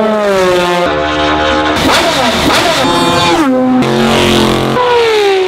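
Race car engines at high revs in short clips spliced one after another, the sound changing abruptly about every second. Most of them drop in pitch, with rising and falling pitches crossing about halfway through.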